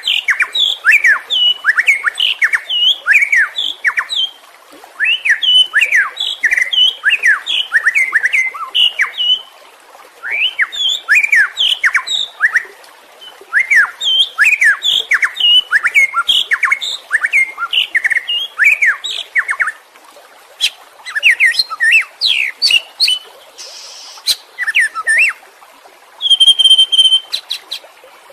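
White-rumped shama (murai batu) singing in an aggressive, fired-up way: runs of quick whistled notes, each sweeping down in pitch, about three or four a second, broken by short pauses. One held high whistle comes near the end.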